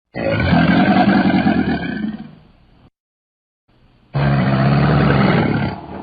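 Crocodile sound effect: two long, low calls, each lasting about two to three seconds, the first fading out by about three seconds in and the second starting about four seconds in.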